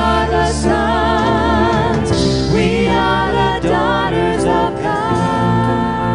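Live contemporary worship music: women's voices singing sustained, wavering lines with vibrato, backed by a band of keyboard, guitar and drum kit, with a cymbal swell about two seconds in.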